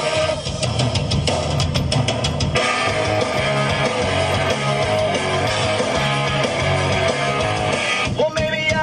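Rock music with drums and guitar over a steady beat.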